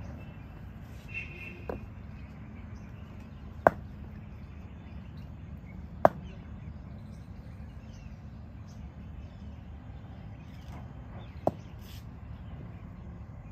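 Sharp knocks from cricket net practice, cricket bat and ball: two loud ones about three and a half and six seconds in, a fainter one just before them and another near the end, over a steady low outdoor background.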